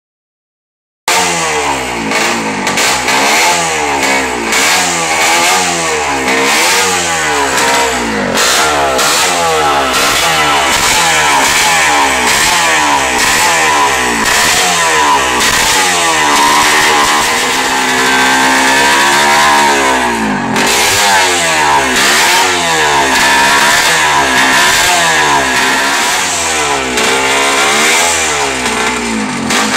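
OSSA 250 Monocasco racing motorcycle's single-cylinder two-stroke engine running and being blipped over and over, its pitch rising and falling about once a second, with one longer high rev held for a few seconds before dropping back. It is being revved while the engine is tuned before a ride.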